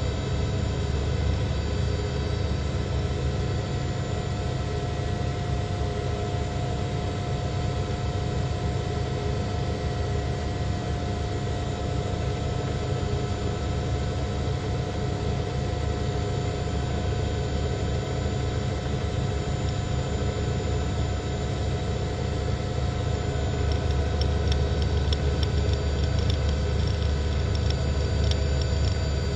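Steady helicopter engine and rotor noise heard through a news helicopter's microphone, a deep rumble with a constant whine, and faint rapid ticking near the end.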